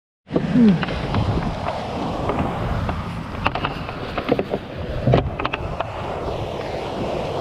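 Wind buffeting the microphone as a steady low rumble, with scattered clicks and knocks. It starts abruptly out of silence about a quarter second in.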